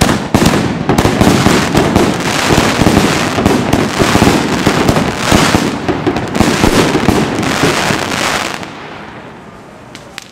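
A ground firework fountain shooting a tall column of sparks, with a loud, dense crackle of many small pops that dies away about eight and a half seconds in.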